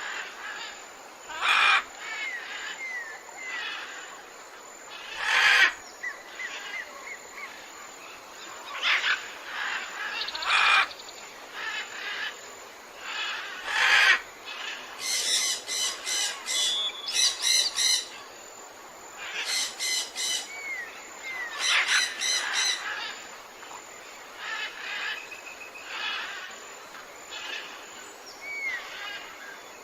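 Several wild birds calling and chirping in repeated short bouts every few seconds, some as quick rising-falling whistles, over a steady background hiss.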